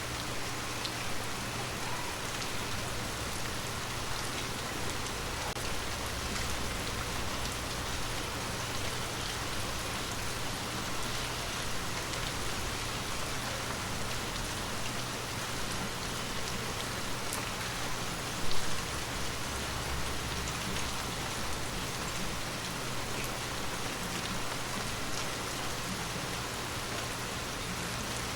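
Water drops pattering steadily on glass, a dense even patter with scattered small ticks, and one louder knock about two-thirds of the way through.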